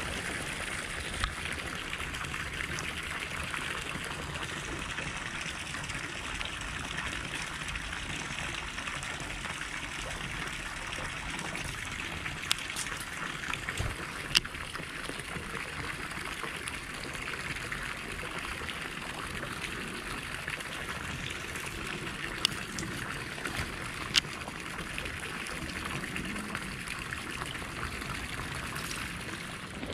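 Steady trickle of water pouring from a concrete drainage pipe outlet into an irrigation channel, with a handful of short sharp clicks scattered through.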